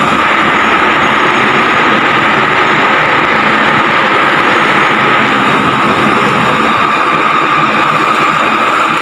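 Truck engine running steadily at idle, a constant loud drone with a steady higher hum over it.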